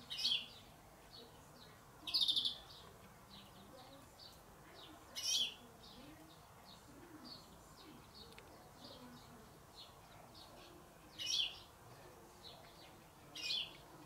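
Small songbirds calling: five loud, short, high chirps spread through, over steady faint chirping.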